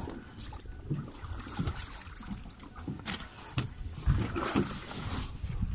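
Knocks and scraping of a heavy shark being dragged with a gaff over the side of an open fishing boat, with water splashing. The knocking gets louder and busier about four seconds in.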